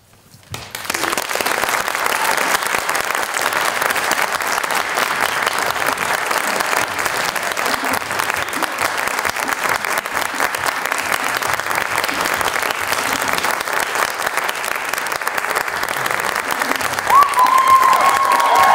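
Theatre audience applauding, starting about a second in and holding steady. Near the end a voice calls out over the clapping.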